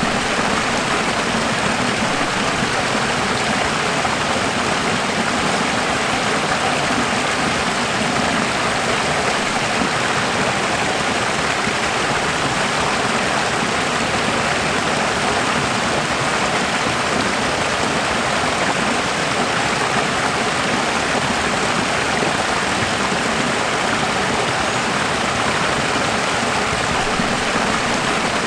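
Running water, a stream flowing in a steady, even rush.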